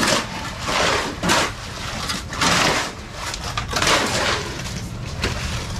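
Shovels scraping through a sand, gravel and cement mix in repeated rough strokes at irregular spacing, over a faint low hum.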